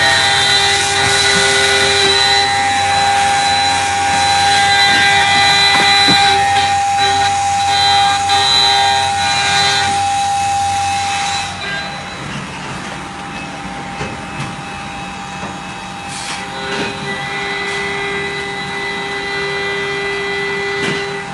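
CNC engraving machine spindle milling a metal workpiece: a steady high spindle whine with the harsh scratchy noise of the cutter. About 12 seconds in the cutting noise drops away and the sound gets quieter, leaving the steady spindle whine.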